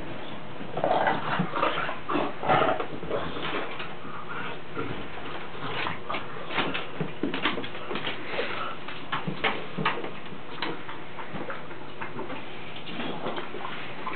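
Two bulldogs play-wrestling, making dog vocal and breathing noises in irregular bursts that are loudest in the first few seconds, followed by scattered short clicks.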